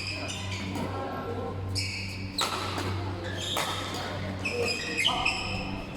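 Basketball game sounds: a ball bouncing on the court among players' shouts and chatter, over a steady low hum.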